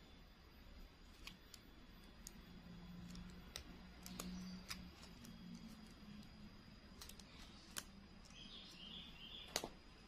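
Near silence with faint scattered clicks and crinkles of thin clear plastic petals being pinched and pressed together between the fingers, and one sharper click near the end.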